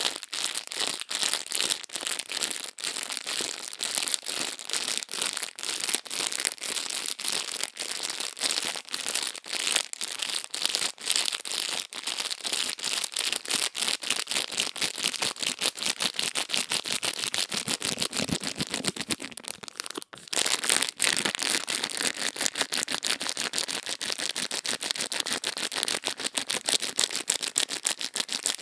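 Fast, irregular crisp crackling and scratching right on the microphone, the crackly ear-cleaning sounds of no-talking ASMR, with a brief break about twenty seconds in.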